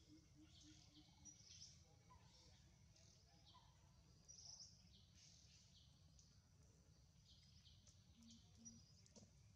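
Very faint outdoor ambience: scattered short, high bird chirps over a low, steady hum.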